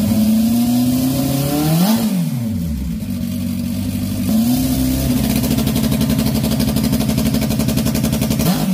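Honda CB750 inline-four motorcycle engine running on a stand and revved by hand: a quick blip up and back down about two seconds in, then it climbs again and is held at higher revs with a rapid, even firing pulse, dropping back near the end.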